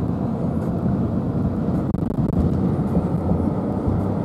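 Steady low road and engine rumble of a car driving along, heard from inside the cabin, with a momentary dropout about two seconds in.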